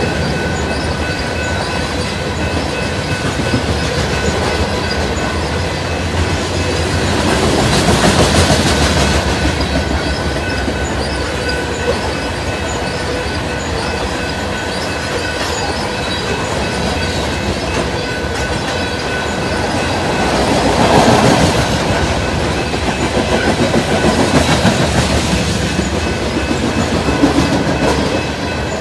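Freight train cars rolling past, their steel wheels clacking over rail joints in a steady run of noise that swells louder twice.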